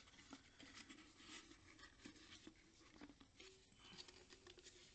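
Faint scraping and rubbing of chipboard against an aluminium drink can as the can is pushed and worked into a hole cut in the board, with scattered small clicks.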